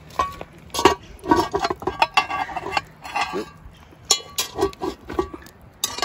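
Cast-iron camp oven and its wire lid lifter clinking and clanking as they are handled, a quick irregular run of metallic knocks, some with a short ring.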